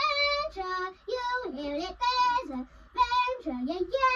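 A child singing a tune without accompaniment, in short phrases of held notes that glide up and down.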